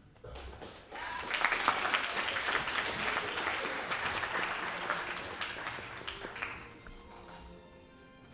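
Audience applauding, starting about a second in and dying away over the last couple of seconds.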